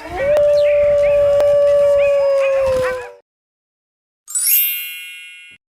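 A wolf howling: one long, held howl of about three seconds that dips slightly in pitch as it ends, with faint short yips behind it. A short, high ringing sound follows near the end.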